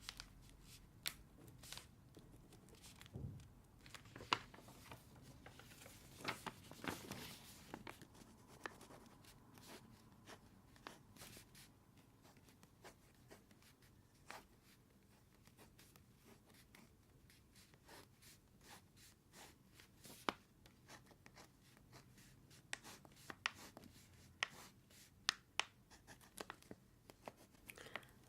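Close-miked writing on notebook paper: a long run of short, scratchy strokes and light ticks, with brief pauses between bursts.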